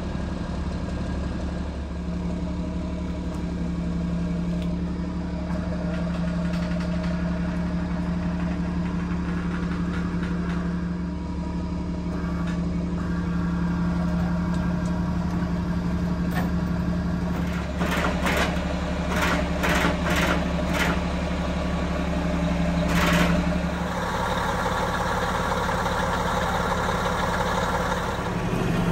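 Mack boom truck's diesel engine running steadily to power the crane while a septic tank is lowered on its chain. A run of sharp knocks comes about two-thirds of the way through, and the engine note changes a little shortly after.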